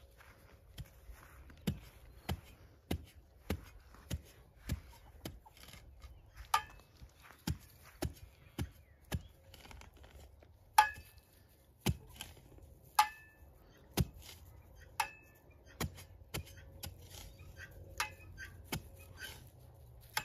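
A metal spade driven again and again into hard, compacted soil to dig a planting hole: a steady run of blows about every 0.6 seconds, a few of them with a short metallic ring from the blade.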